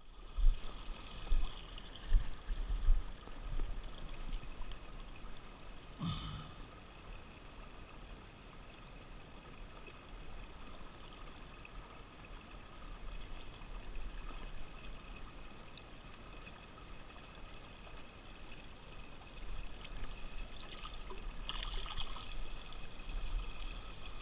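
River water running and lapping beside the boat as a hand holds a fish in the shallow current, with a few low thumps near the start.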